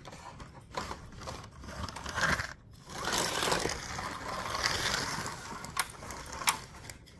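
A small electric slot car running along its plastic track, the motor whirring and the car rattling over the track joints, with a few sharp clicks. The sound grows louder about halfway through.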